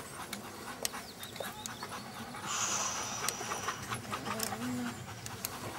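A dog panting, with a few light clicks.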